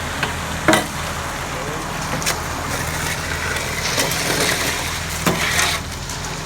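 A heavy vehicle engine running steadily at a work site, with a few sharp knocks and a noisier scraping stretch near the end.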